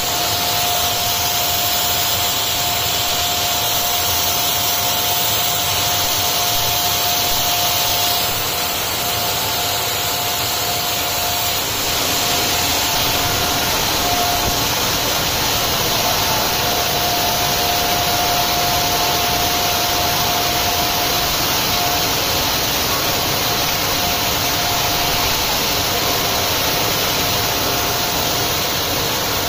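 Circular knitting machines running steadily: a constant loud whirring hiss with a thin steady whine through it.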